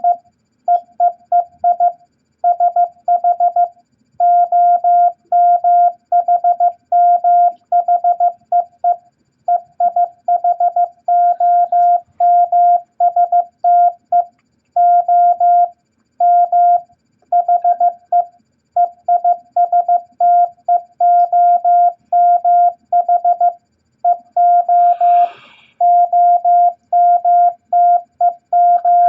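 Morse code practice tone: a steady, mid-pitched beep keyed on and off in short dots and longer dashes, sent at 15 words per minute in letter groups from E, I, S, H, T, M and O. A brief noise cuts in about 25 seconds in.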